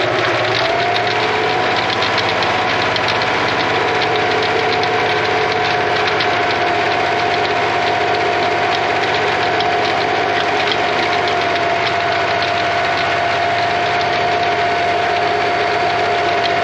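Ford 2110 tractor's engine running steadily under the load of a drum core aerator, with a steady whine and a fast even ticking over it. The whine rises slightly in pitch about half a second in, then holds.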